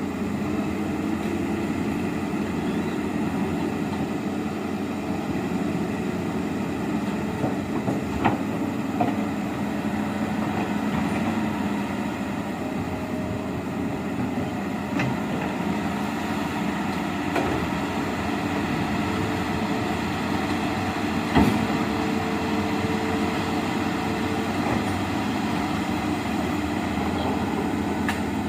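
Amphibious excavator's diesel engine running steadily, with a few sharp knocks, the loudest about eight seconds in and about twenty-one seconds in.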